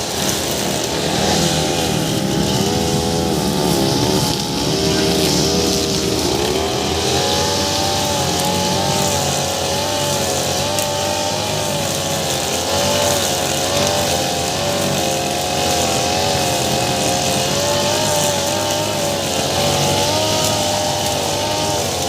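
Two-stroke petrol brush cutter running at high revs while cutting grass with a steel-cable line, its engine pitch wavering up and down continuously as the line meets the grass.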